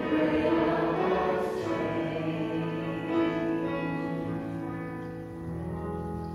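A choir singing a hymn in long held notes, the music gradually fading out.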